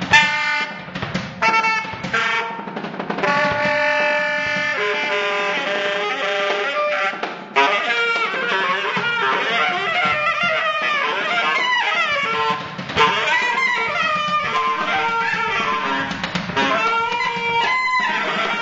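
Live saxophone ensemble playing with drums: long held saxophone chords for the first few seconds, then busier overlapping saxophone lines that bend in pitch.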